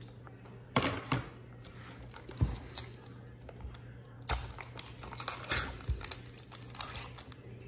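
A few knocks of plastic bowls and a container set down on a counter, then crinkling as the seal is peeled off a plastic sour cream tub.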